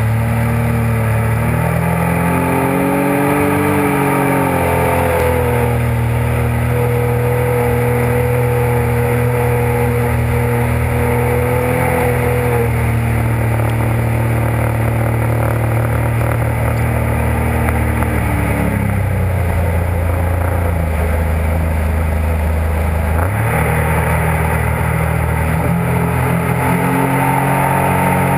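Jet ski engine running under way over water rushing from the wake. The engine note climbs about two seconds in, holds steady, drops about eighteen seconds in, and climbs again about twenty-three seconds in.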